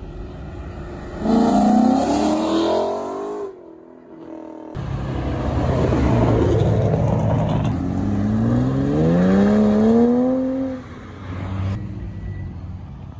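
Car engines revving and accelerating hard away, one after another. A short rev climbs in pitch, then after a break a longer, louder pull climbs steadily in pitch before dropping away. Near the end a quieter engine runs at low revs.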